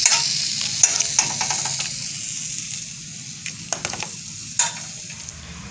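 Dried chiles toasting on a hot stovetop griddle: a steady hiss that slowly fades, broken by a few sharp clicks of metal tongs turning the chiles.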